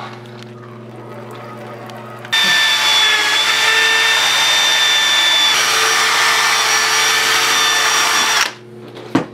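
Milwaukee cordless drill spinning an 800-grit sanding disc against a wet plastic headlight lens in a wet-sanding restoration. It starts about two seconds in over a low steady hum, runs steadily with a high whine, and stops abruptly near the end.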